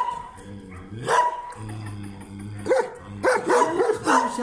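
Dogs in shelter kennels barking: a single bark about a second in, then a dense run of barking near the end.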